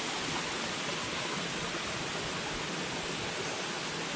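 Flowing stream water, a steady rush with no breaks.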